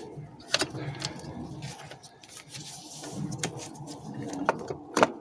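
Scattered metallic clicks and knocks of hand tools and car parts being handled during repair work, with a sharper click about five seconds in.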